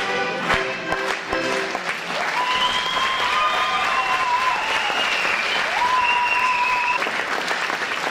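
Folk dance music ends about two seconds in, and a crowd breaks into steady applause. A long high held tone runs over the clapping and stops near the end.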